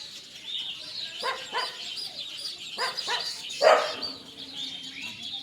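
Birds chirping over and over, with several short, louder cries cutting in, the loudest about two-thirds of the way through.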